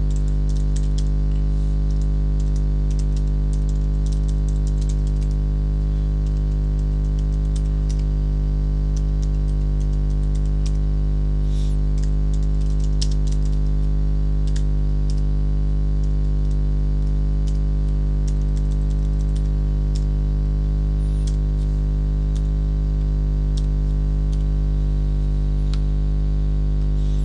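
Computer keyboard typing, with irregular key clicks coming in clusters over a loud, steady electrical mains hum.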